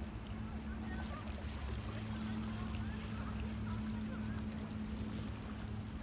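Steady low hum of a distant boat engine across open water, over the soft wash of sea water lapping at shoreline rocks. Faint short chirping calls come and go on top.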